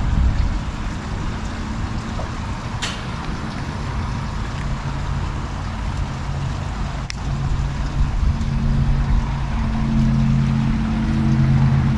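Steady low rumble of a motor vehicle engine, its hum growing stronger about eight seconds in, with a few sharp clicks.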